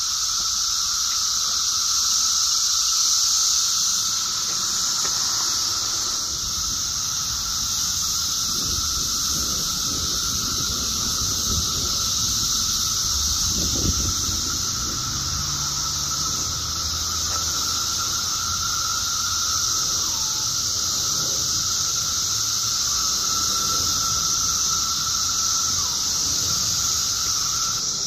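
A dense chorus of periodical cicadas singing in the trees. It is a steady, loud, high droning hiss with a thinner steady whine running beneath it.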